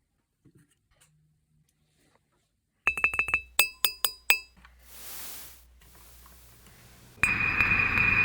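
A mug struck several times in quick succession, giving about eight bright ringing clinks, followed by a short swelling hiss. About seven seconds in, a loud, steady ringing drone starts suddenly and keeps going.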